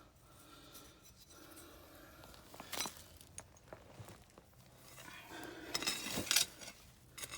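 Hand tool scraping through soil, with hard bits of crockery and glass clinking against it: a few sharp clinks about three seconds in and a busier run of scraping and clinking around six seconds in.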